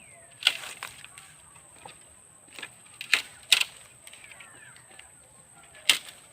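Four sharp knocks or strikes at uneven spacing: one about half a second in, two close together about midway, and one near the end. Faint bird chirps sound in between.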